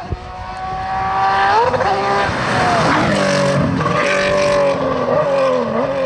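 Porsche GT3 Cup race car's flat-six engine at full throttle, getting louder as it approaches over the first second and a half. Its pitch climbs, drops at gear changes about two and a half seconds in and again near the end, and climbs again between them.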